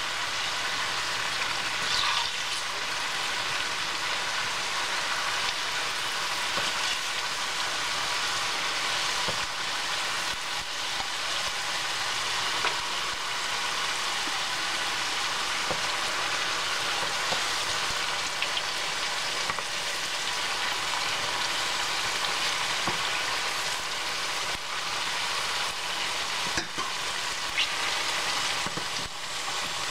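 Sweet potato slices sizzling steadily in hot oil with brown sugar and sesame seeds, in a stainless steel pan. Short clicks of a fork and wooden spatula against the pan come now and then as the slices are turned.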